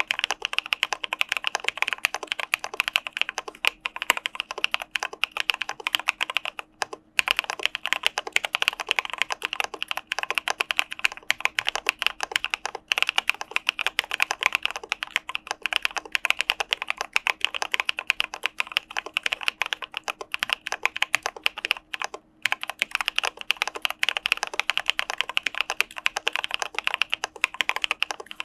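Fast, continuous typing on an Arisu Alice-layout mechanical keyboard with CPSD linear switches: a dense stream of keystroke clacks, broken by brief pauses about 7 seconds in and again about 22 seconds in.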